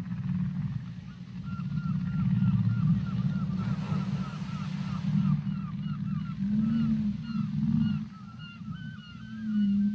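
Whale calls under water: a fast series of short, arching high chirps, about four a second, over a steady low drone with a few slow rising-and-falling moans.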